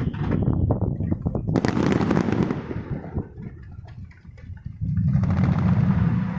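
Aerial fireworks bursting: a quick run of bangs and crackles, the loudest bang about one and a half seconds in, then a quieter spell of scattered crackling and a loud low rumble from about five seconds in.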